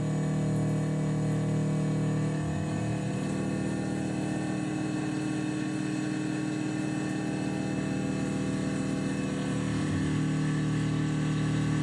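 Tormach PCNC 1100 CNC mill's spindle running while an end mill cuts a metal block under flood coolant, a steady machining sound with several held tones over a noisy wash. The low part of the sound shifts briefly about two and a half seconds in and again near ten seconds.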